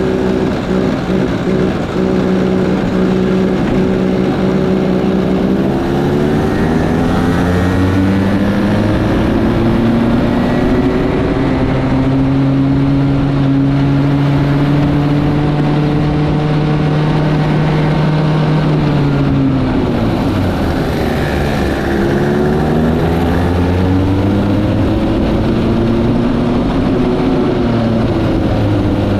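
Go-kart engine running hard. Its pitch climbs over several seconds and holds steady, then drops sharply about twenty seconds in before climbing and holding again.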